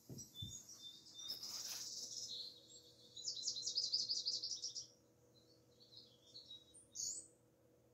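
Small songbirds chirping on a nature video played through the TV's speakers: scattered high chirps, with a fast, loud trill of about eight notes a second in the middle.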